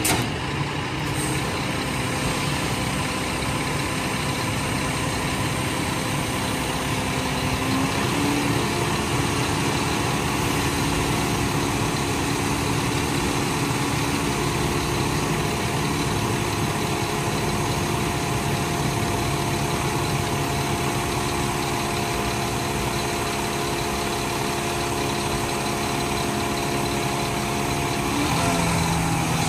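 Scania P360 hooklift truck's five-cylinder diesel running steadily while it drives the hydraulic hook arm up. The steady engine and pump tones step slightly in pitch about eight seconds in, and again near the end.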